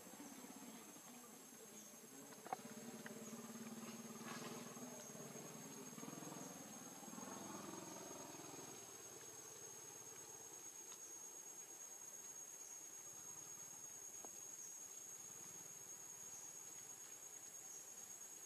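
Faint, steady, high-pitched insect drone from crickets or cicadas, with a single sharp click about two and a half seconds in.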